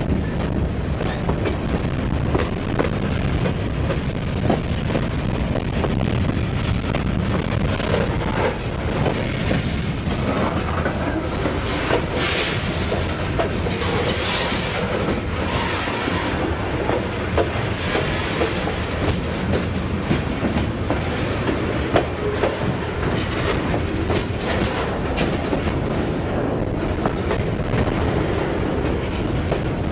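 Freight cars of a Norfolk Southern train rolling steadily past, a continuous rumble and rattle with the wheels clicking over rail joints; a brighter, hissing screech swells up twice about halfway through.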